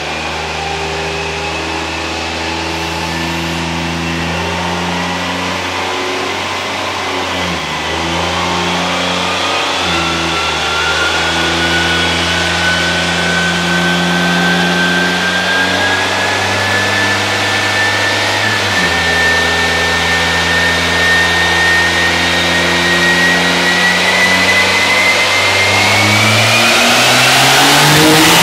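Ram heavy-duty pickup's turbo-diesel engine making a full-throttle pull on a chassis dynamometer, pulling through the gears with the engine note dropping at shifts about 7 s, 10 s and 19 s in. A whine climbs steadily in pitch over the pull and peaks near the end, when the engine is at full load and running rich enough to pour black smoke.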